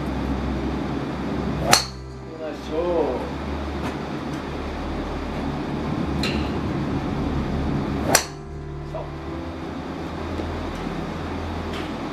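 Two sharp golf shots, a club striking the ball about six seconds apart, with a few fainter clicks between them over a steady low background hum.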